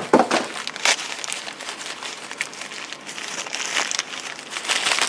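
Crumpled packing paper being handled and searched through, rustling and crinkling in irregular bursts with a few sharp crackles.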